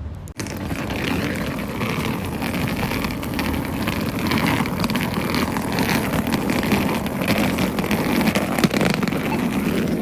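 Skateboard wheels rolling steadily over rough pavement, a continuous gritty rumble with one sharp click a little before the end.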